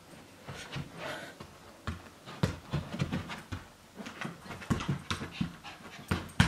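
Japanese Akita puppy panting during play, with irregular thumps of bare feet stepping on carpet.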